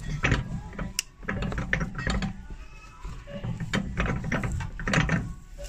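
Old leather heel block being prised off a shoe's heel with a flat metal lifting bar: irregular cracking and creaking as the heel nails pull out of the leather.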